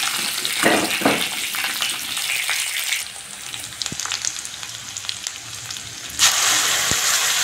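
Onion, dried red chillies, bay leaves and whole spices sizzling in hot oil in an iron wok, with a metal ladle stirring and scraping the pan for the first few seconds. About three seconds in the sizzle drops quieter, and just after six seconds it jumps back louder.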